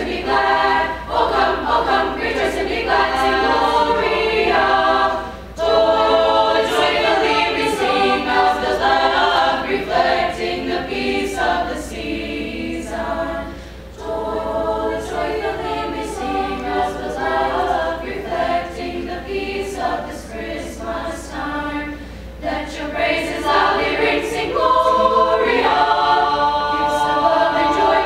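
Teenage choir of mostly female voices singing in parts under a conductor. The singing breaks off briefly about five seconds in, goes softer through the middle, and swells fuller again near the end.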